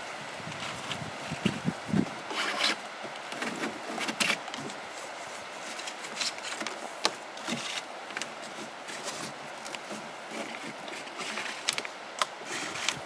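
Bungee cord being pulled out through the holes of a kayak's plastic seat frame and hull: an irregular run of rubbing and scraping strokes with a few sharp clicks.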